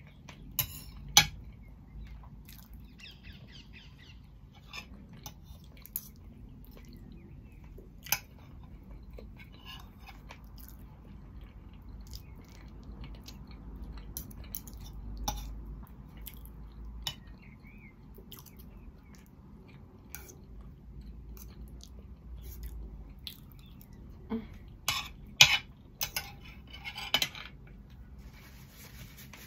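Knife and fork clinking and scraping on a plate, with chewing between the clinks. There is a cluster of louder clinks near the end, as the cutlery is set down on the plate.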